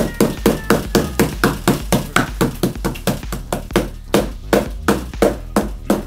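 Wooden rolling pin beating a butterflied sirloin steak under cling film on a wooden chopping board, flattening the meat. Fast, even blows, about three to four a second.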